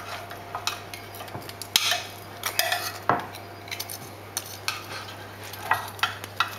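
Metal tongs and a knife clicking and scraping against a ceramic baking dish as roast pork is cut and lifted, in irregular short clatters, the loudest about two and three seconds in.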